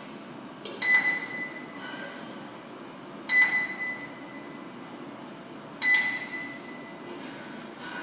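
Hospital patient monitor beeping three times, one high tone about every two and a half seconds, each ringing on for about a second, over a steady low room hum.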